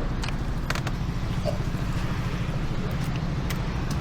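Steady low vehicle rumble with a few light clicks.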